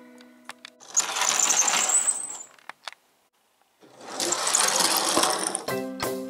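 Small toy vehicle rolling over a hard plastic play mat with a whirring, rattling run, twice, a short pause between; the first run carries a thin high whine. Background music comes back near the end.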